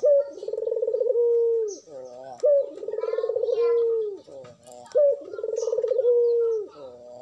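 Barbary dove (puter) cooing its song three times, about one phrase every two and a half seconds. Each phrase is a short higher note, then a long rolling coo that falls away at the end.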